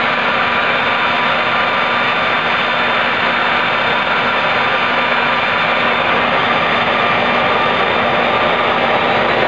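Homemade turbojet engine built from a turbocharger running steadily: a loud, even rushing roar with a thin steady whine over it.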